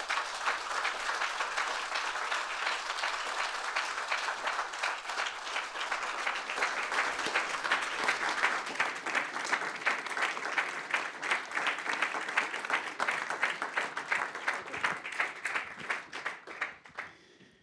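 Audience applauding: dense, continuous clapping from a roomful of people that thins out and stops near the end.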